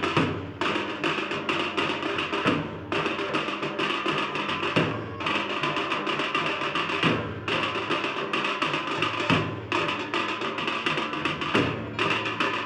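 Dhol drums beaten in a fast, driving rhythm by a festival drum group, the phrase breaking off briefly about every two seconds.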